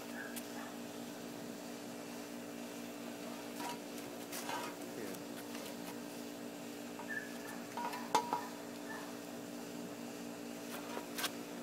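A steady low hum, with a few faint clinks and knocks scattered through it; the sharpest knock comes about eight seconds in.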